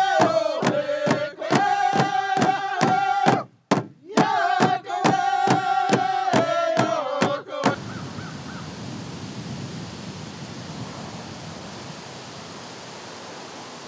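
A drum struck steadily with a stick, about three beats a second, under a man's chanting voice holding long notes; it breaks off briefly around the middle, resumes, then stops abruptly. After that, only a steady, even outdoor hiss.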